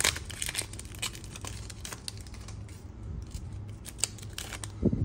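Plastic trading-card pack wrapper crinkling and rustling in a series of quick crackles as it is torn open and the cards are pulled out.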